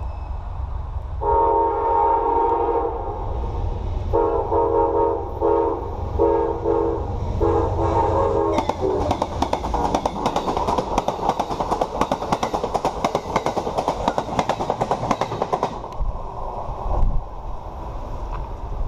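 Amtrak passenger train's locomotive horn sounding a series of blasts on approach: two long, a few short, then a long one. The train then passes close by with a steady rumble and rapid clacking of wheels over rail joints, which dies away after about seven seconds, and a single low thump comes near the end.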